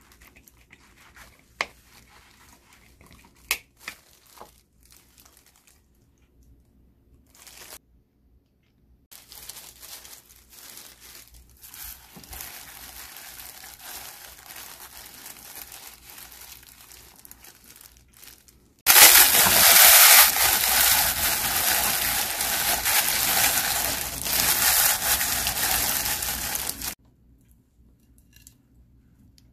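Kitchen handling sounds: a few sharp clicks, then crinkling and rustling that grows much louder about two-thirds of the way in and stops abruptly near the end.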